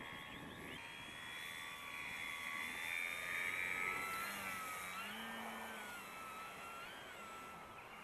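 Electric motor and propeller of a Dynam Pitts RC biplane whining in flight. The whine grows loudest as the plane passes close by, then its pitch rises and falls with the throttle as the plane climbs away.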